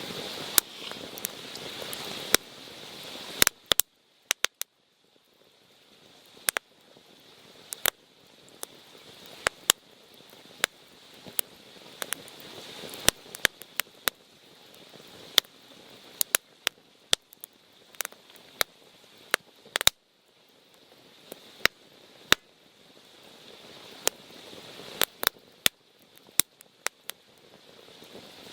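Wood campfire crackling and popping with irregular sharp snaps over a soft hiss that swells and fades.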